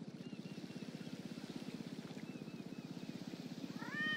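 Domestic cat purring steadily, a fast, even low rumble. Faint high chirps come in small groups, and a short rising call sounds near the end.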